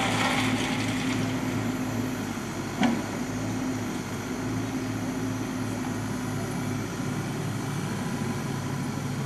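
Wheeled excavator's diesel engine running steadily with a rhythmic pulsing throb while it works its grab over a steam locomotive, and one sharp clank about three seconds in.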